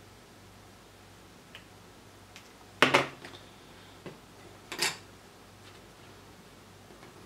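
Small electronic parts and a circuit board being handled and set down on a cutting mat: a few light clicks and knocks, the loudest about three seconds in and another near five seconds.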